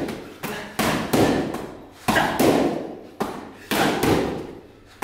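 Boxing gloves punching focus mitts: about eight sharp smacks in quick combinations of two or three, each with a short ringing tail.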